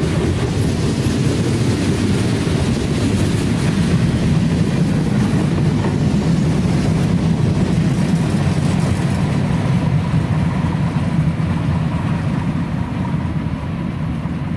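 Freight cars rolling past close by: a steady rumble and rattle of steel wheels on the rails. The higher sounds fade near the end as the last car pulls away.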